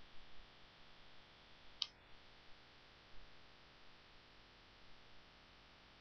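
Near silence: faint steady hiss of a broadcast audio feed, with one sharp click about two seconds in.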